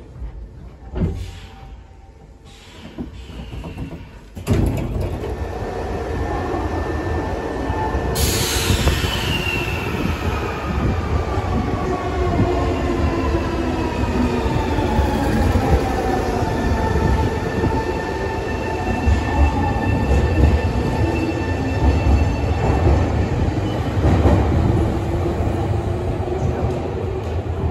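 A Series 3000 resistance-controlled electric train (Semboku/Nankai) running along a station platform: a continuous rumble of wheels and running gear, with motor whine tones that fall in pitch from about eight seconds in. The first few seconds are much quieter, with a few light clicks.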